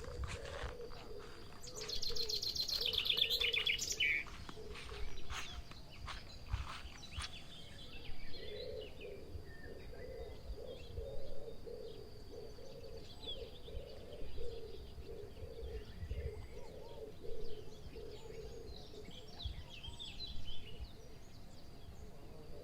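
Wild birds singing and calling: a fast, falling trill about two seconds in, then a low call repeated steadily for most of the rest, with scattered higher chirps.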